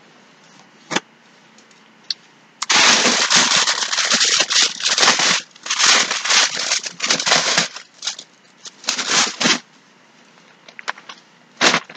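A bag being handled and opened, rustling and crinkling in several loud bursts, after two short clicks.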